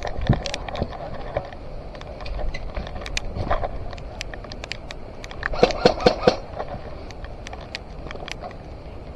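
Airsoft gunfire during a match: scattered sharp snaps of shots and BB hits, with a quick string of four or five louder snaps a little past halfway, over a low rumble of movement on the microphone.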